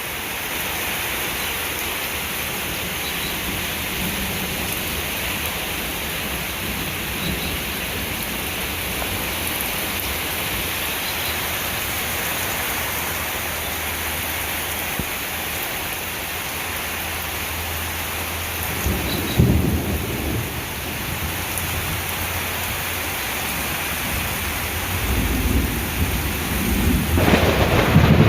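Heavy rain pouring steadily in a thunderstorm. Thunder rumbles briefly about two-thirds of the way through, then again near the end, building to the loudest point.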